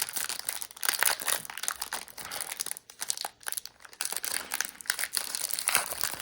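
Foil trading-card pack being torn open and crinkled by hand, a dense irregular crackle of rustling wrapper with sharp little crunches.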